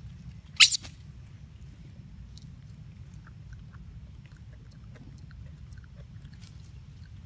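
Baby long-tailed macaque giving one short, sharp squeal about half a second in, followed by faint scattered squeaks and rustling as an adult handles it.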